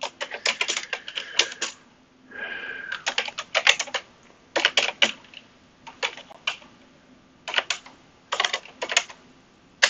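Typing on a computer keyboard: quick bursts of keystrokes separated by short pauses.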